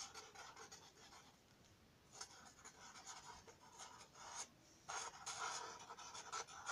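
Felt-tip Sharpie marker rubbing and scratching across paper in short strokes, faint, with brief pauses between strokes and busier strokes in the second half.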